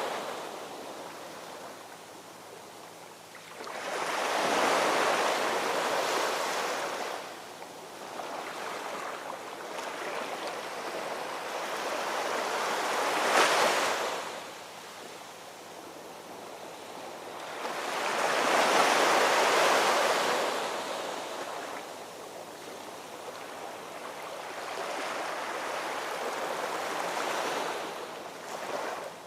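Ocean surf: waves breaking and washing in, four swells that rise and fall every six to eight seconds, the one about midway a sharper crash.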